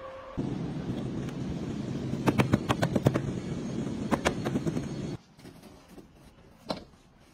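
Repair-shop hand work on a car body: a steady background of noise with quick runs of sharp clicks and knocks about two and four seconds in. After about five seconds it goes much quieter, with one more click near the end.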